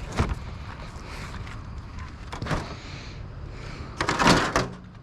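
A sharp knock, then a noisy scraping clatter about four seconds in, as items in a curbside trash bin are handled and moved around.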